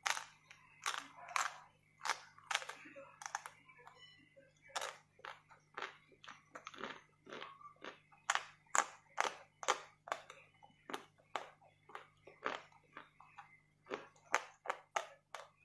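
Frozen chocolate being bitten and chewed close to the mouth: a dense, irregular run of sharp crunches and cracks, a few every second.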